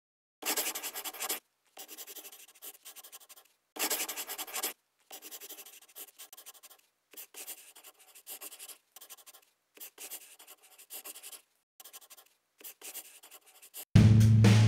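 Handwriting sound effect: a run of short scratching writing strokes, the first two longer and louder than the rest. Near the end a loud, deep music hit comes in.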